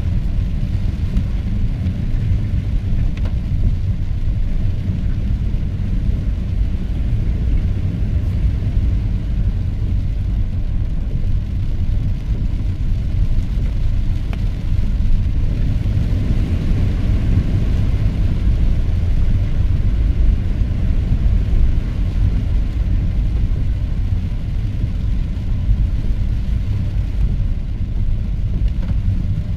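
Car driving in the rain: a steady low road rumble with a fainter hiss above it, unbroken throughout.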